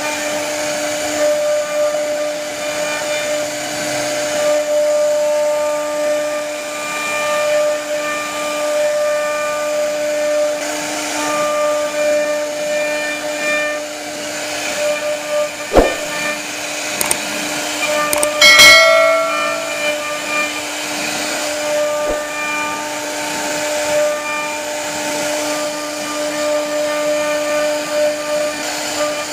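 CNC router spindle running with a steady whine while its bit carves a relief pattern into a wooden board, the cutting noise wavering as the bit moves through the wood. A few sharp knocks come about halfway through, the loudest a little after.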